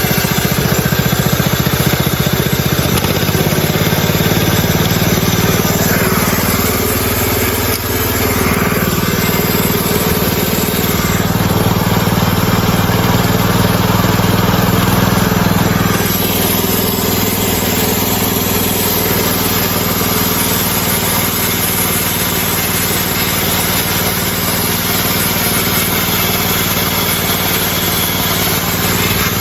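Small gasoline engine of a Hudson portable band sawmill running steadily under load as the band blade makes its first cut through a log.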